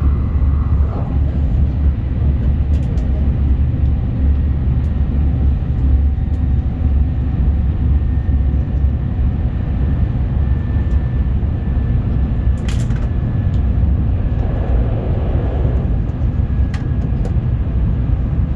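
Shinkansen bullet train running at speed: a steady low rumble that holds an even level, with a brief click about thirteen seconds in.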